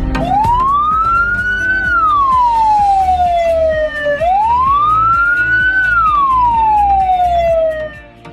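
Ambulance siren in a slow wail: the pitch rises over about two seconds, then falls slowly over about two more, two full cycles, stopping near the end. Background music with a steady beat runs underneath.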